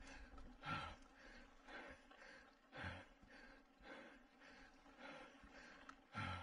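A mountain bike racer breathing hard under effort, one heavy breath about every second.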